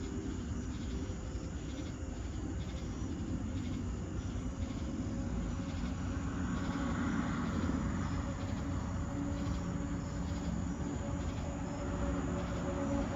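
Insects chirping in a steady pulsing night chorus over a low engine rumble with a steady hum, which grows louder about halfway through, like a distant vehicle passing.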